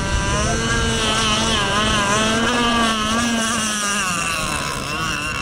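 Engines of radio-controlled offshore racing model boats running at speed, a high whine wavering up and down in pitch. A lower engine note drops away about four seconds in.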